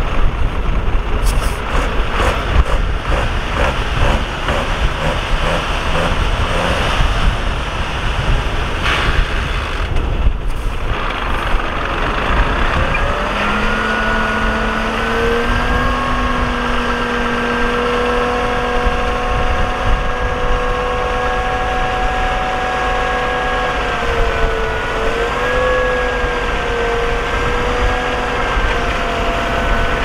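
Heavy diesel earthmoving machinery working: a loud engine rumble with scattered knocks and rattles, then from about twelve seconds in a steady pitched whine joins it and holds, wavering briefly near the end.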